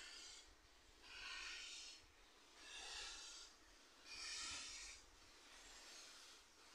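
Faint exhaust beats of LMS Ivatt Class 2MT steam locomotive No. 46512 moving slowly while running round its train: a soft, hissing chuff about every one and a half seconds, five in all.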